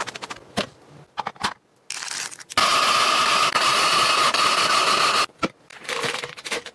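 An electric shaved-ice machine running for about three seconds from midway, grinding a block of ice into flakes with a steady noisy whir. Before it come light crackling and rustling sounds of plastic snack packets.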